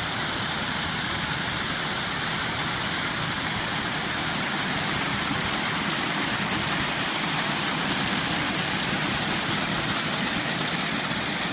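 Thousands of 4-inch plastic shade balls rolling and bouncing down a reservoir's plastic liner and dropping into the water, a steady, dense, rain-like clatter. A truck engine runs underneath.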